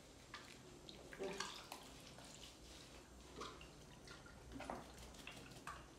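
Faint, scattered splashes and sloshing of water in a plastic basin as a baby monkey is rubbed and washed in it.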